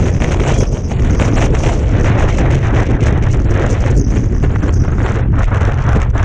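Wind buffeting the microphone: a loud, steady, fluttering rumble.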